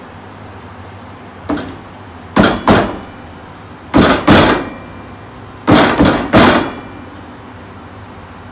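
Fists banging on a folding table: a light knock, then loud bangs in quick groups of two, two and three.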